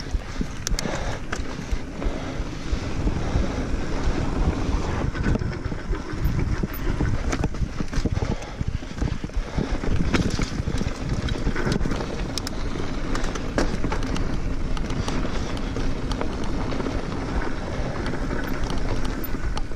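Wind buffeting the action camera's microphone over the rolling noise of mountain bike tyres on a dirt trail, with frequent clicks and rattles from the bike as it rides over bumps.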